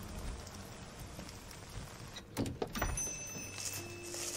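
Steady rain falling on a city street in a TV drama soundtrack, over a low hum. A few sharp knocks come a little past the middle, and faint steady tones begin toward the end.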